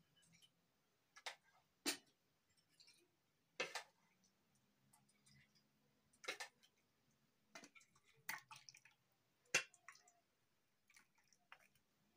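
Steel kitchenware clinking as dal is served: light, separate knocks of a steel cup against the pot and small steel bowls, about eight spread unevenly over the stretch.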